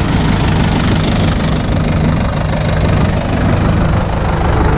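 Antique tractor engines running steadily, the nearest an old Deutz tractor close alongside.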